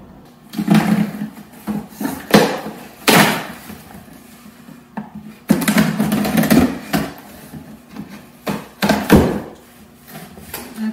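Packing tape on a cardboard shipping box being slit with a knife and the cardboard flaps pulled open: a series of separate scraping and tearing noises, the loudest about three seconds in.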